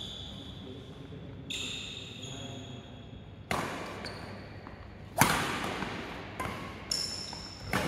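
Badminton rally: several sharp racket strikes on the shuttlecock, the loudest about five seconds in, with short high squeaks of court shoes on the floor.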